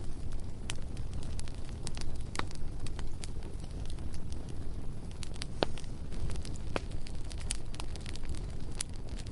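Bonfire burning, with irregular sharp crackles and pops over a steady low rumble of the flames.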